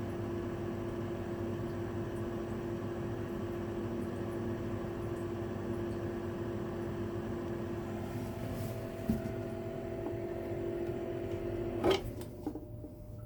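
1983 Mitsubishi V-30ZPU pipe ventilation fan running with a steady motor hum and whir of air. A sharp click comes near the end, and the hum cuts off.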